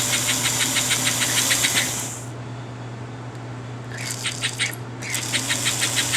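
American Flyer 312 K5 model steam locomotive running, a rapid even clicking of about eight or nine beats a second with a hiss. The sound drops away about two seconds in and comes back twice in short stretches near the end, over a steady low hum.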